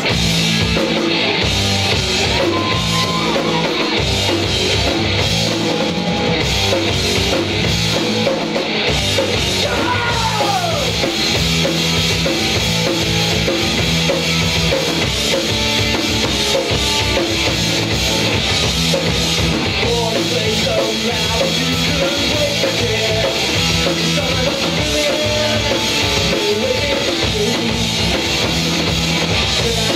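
Live rock band playing loudly and without a break: electric guitar, bass guitar and drum kit.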